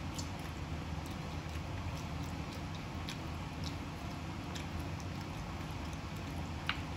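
Chewing and small wet clicks of a man eating buffalo chicken wings and pulling a wing apart by hand, over a steady low hum. One sharper click comes near the end.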